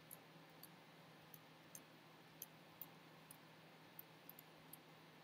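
Near silence with faint, irregular clicks from a computer mouse and keyboard being used, over a low steady hum.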